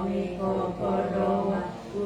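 Japanese Konkokyo prayer chanted aloud by voices reading together, on a steady, near-monotone pitch with short breaks between syllables.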